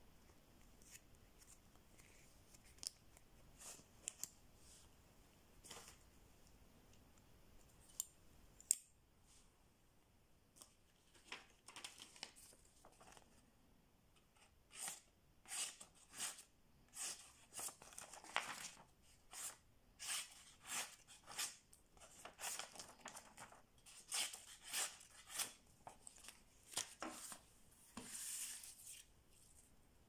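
Folding blade of an all-metal money-clip knife slicing through a sheet of paper: a long string of short cutting strokes through the second half. Before that come a few sharp metal clicks as the clip is handled and the blade is opened, the loudest about nine seconds in.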